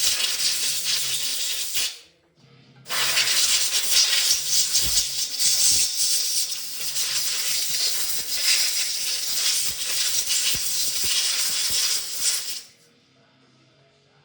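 A hand-held power tool running with a steady hiss, in two runs: about two seconds, a short break, then about ten seconds before it cuts off sharply.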